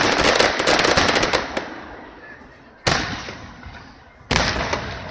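Fireworks display: a dense volley of crackling pops during the first second and a half, fading out, then two single sharp bangs from shell bursts about a second and a half apart, each trailing off in an echo.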